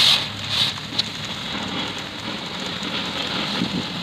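Oxy-fuel cutting torch hissing steadily as it cuts through steel plate, with a few louder puffs in the first second.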